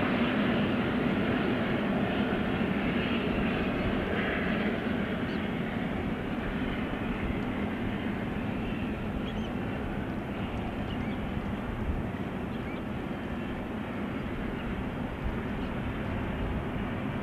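Steam double-header of LNER A1 Pacific 60163 Tornado and GWR King 6024 King Edward I running with a long train, heard from a distance as a steady rumble with no distinct exhaust beats. It slowly fades as the train draws away.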